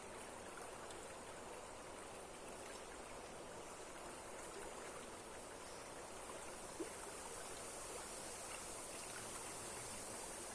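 Running water rushing steadily, with one brief click about seven seconds in.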